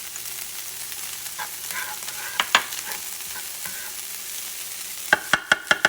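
Chopped vegetables and ham sizzling in hot oil in a non-stick frying pan while being stirred. A quick run of sharp clacks, the utensil striking the pan, comes near the end.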